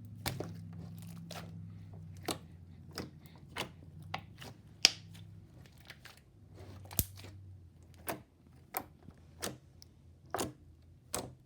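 Glitter slime being squished and poked by hand, giving a string of sharp little pops and clicks, irregular, about one or two a second.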